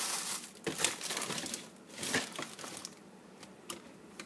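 Rustling and crinkling of plastic bags and foil-wrapped food being moved around inside a refrigerator, in a few short bursts over the first two and a half seconds, then quieter with a couple of faint ticks.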